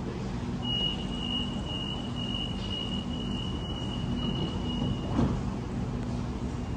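Electric suburban train at a station, its steady low hum running throughout with a thin, steady high whine for several seconds and a short knock about five seconds in.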